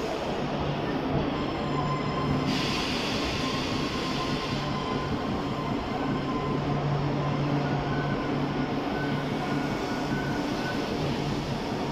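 Double-decker passenger coaches rolling slowly past as the train arrives, with a steady rumble and low hum from the wheels and running gear and a faint brake squeal. A burst of hiss comes in about two and a half seconds in and lasts about two seconds.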